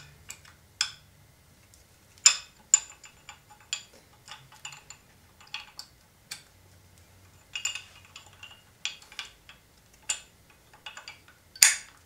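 Brake pads being fitted into a motorcycle's monoblock brake caliper, metal pad plates clicking and clinking against the caliper and its pad spring in an irregular scatter of sharp clicks. The loudest click comes near the end, as a pad lines up and snaps into place.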